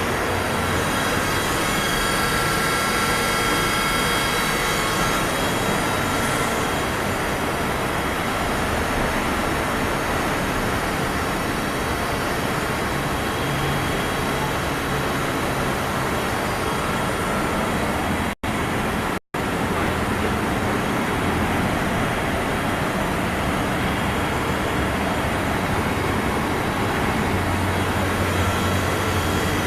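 Mitsui Seiki VT-3A CNC machining center running, a steady mechanical whirr with faint whining tones that shift a few times. The sound drops out twice for a split second a little past the middle.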